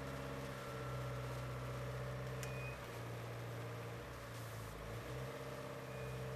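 An engine running steadily, its note shifting a few times, with one sharp click a little over two seconds in.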